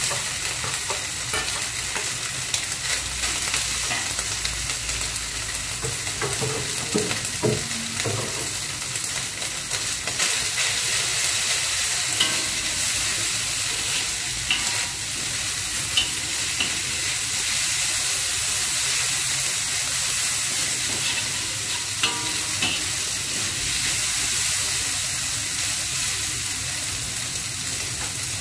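Carrot strips and dried shrimp sizzling in hot oil in a wok as a metal spatula stirs and scrapes them, with a sharp tap of the spatula against the wok now and then.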